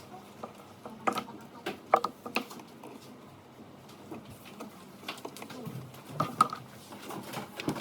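Irregular clicks and knocks of small parts and tools being handled, several close together in the first half and a couple more near the end.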